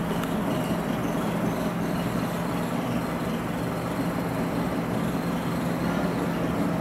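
Steady low mechanical hum of the electric motor drive working an animatronic manta ray's flapping wings, with no change in pitch or level.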